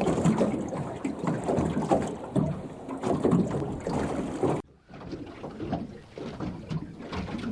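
Wind buffeting the microphone aboard a small aluminium fishing boat, with irregular knocks and rattles. It cuts out abruptly about two-thirds through, then resumes quieter.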